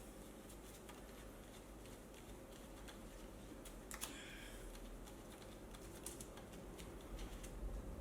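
Faint, irregular small clicks and taps of hand tools and metal parts as a side of the electric unicycle is fastened, with one louder metallic click and a brief ring about four seconds in.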